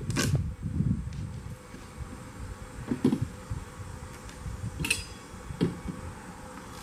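Outdoor ambience with wind rumbling on the microphone and a faint steady insect drone, broken by a few light knocks and clatters of plastic toy containers and dishes being handled, the sharpest near the start and about five seconds in.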